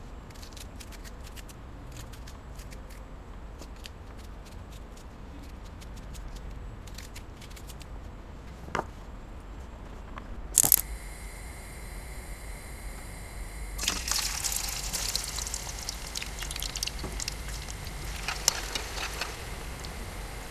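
Knife cutting a peeled onion on a wooden cutting board, a quick run of small crisp cuts with a heavier knock about nine seconds in. A loud sharp clack about halfway through, then fat sizzling and crackling with many small pops in a frying pan.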